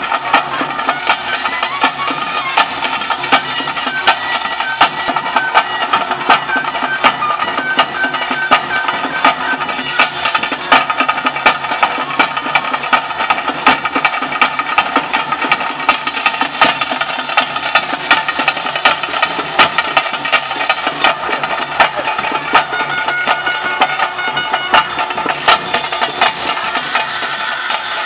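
Traditional bhuta kola ritual music: drums beating a fast, steady rhythm with a sustained melody line held over it.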